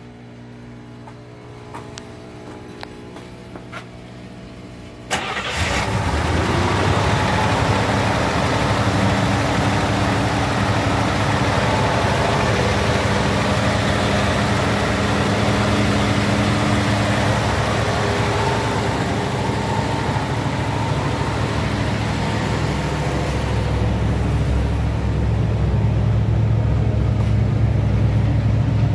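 1964 Buick 401 nailhead V8 firing up about five seconds in with a sudden burst, then running steadily. Its low exhaust note grows stronger near the end, heard closer to the tailpipes.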